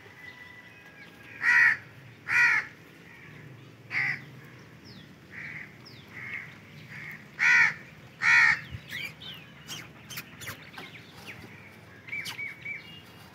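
Crows cawing: loud single caws, some in pairs a little under a second apart, with fainter caws between and short, thin chirps of small birds in the latter half.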